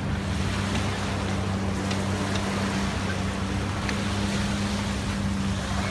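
Longtail boat engine running steadily at an even pitch, with a few faint ticks.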